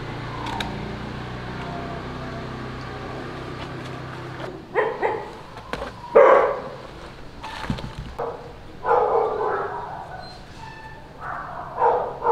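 A dog barking repeatedly, short barks in irregular groups starting about four seconds in, after a low steady hum that stops there.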